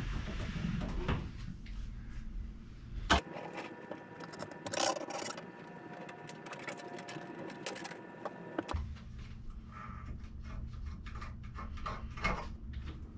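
A stacked front-load washer and dryer being shoved aside by hand: rumbling and scraping across the floor with scattered knocks.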